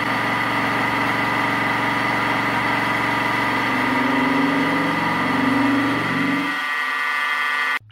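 Mini milling machine driven by a 1 HP servo motor through a toothed belt, its 3-inch fly cutter taking a single facing pass across 6061 aluminum: a steady high whine over a lower hum. A few seconds before the end the lower hum drops away, and then the sound stops abruptly.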